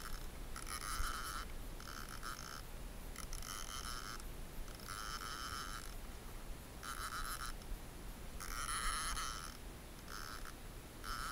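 Abu Garcia fishing reel buzzing under the load of a hooked tarpon, in about ten irregular spurts of up to a second each, with short gaps between them.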